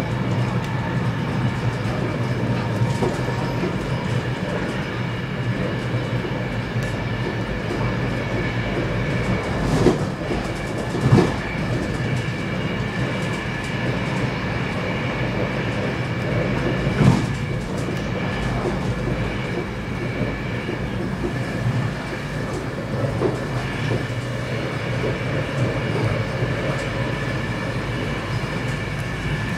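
Running noise inside a carriage of an X10 electric commuter train at speed: a steady rumble of wheels on rail with a faint steady whine, and a few louder knocks from the track about ten, eleven and seventeen seconds in.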